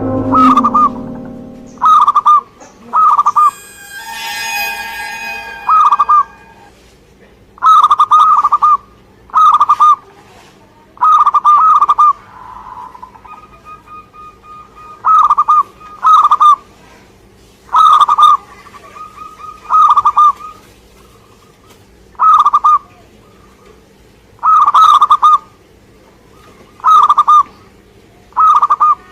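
Zebra dove (perkutut) singing its staccato cooing song: short, loud phrases of quick coo notes, each under a second, repeated every one to two seconds. A brief burst of higher, busier chirping comes about four seconds in.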